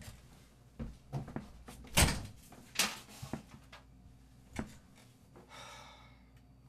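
A run of short knocks and thumps in a small room, as a door or furniture is handled and people move about, the loudest about two seconds in. A brief rustle follows near the end.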